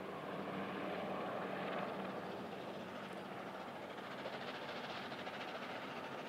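Three-cylinder LNER A4 Pacific steam locomotive approaching under steam with its train: a steady rushing exhaust and rolling rumble, without separate exhaust beats.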